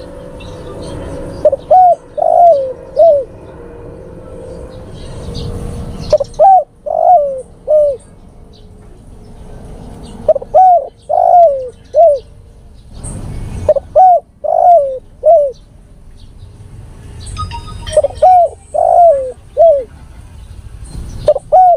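Male spotted dove cooing, its call to a female: about six phrases of four or five short notes, each note dropping in pitch, repeated every few seconds.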